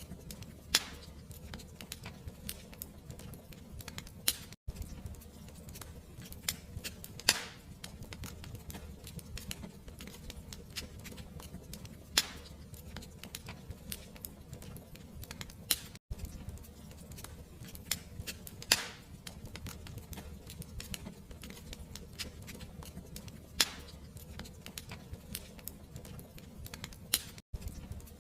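Wood fire crackling in a fireplace: a steady low rumble with frequent small crackles and a sharp pop every few seconds. The sound drops out for an instant three times.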